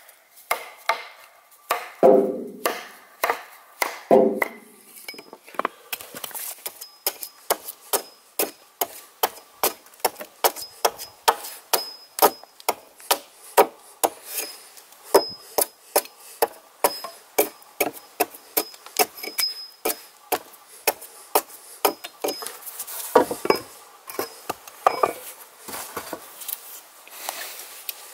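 Hatchet chopping out the waste of a notch in a red alder log, sharp strikes about two a second, with a few heavier thuds.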